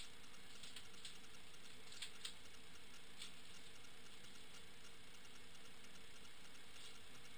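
Faint clicks and rustles of paper envelopes being handled, a pair about two seconds in, one a second later and one near the end, over a steady low hiss with a faint hum.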